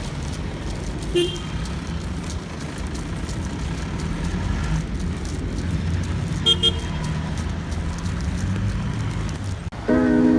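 Road traffic rumbling steadily, with a short vehicle horn toot about a second in and a quick double toot about six and a half seconds in. Ukulele music comes in just before the end.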